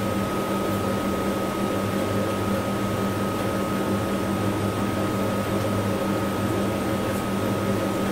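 Steady machine hum, like a room fan or air conditioner, with a thin constant whine above it.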